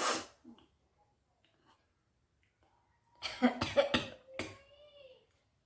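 A person sneezing, the sneezes set off by tickling the nose with a blade of grass: one sharp sneeze at the start, then a quick run of several more about three seconds in, ending in a short voiced breath.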